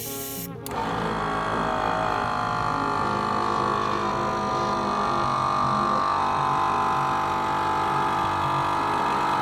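A machine's engine or motor running steadily, starting abruptly about half a second in and cutting off sharply at the end.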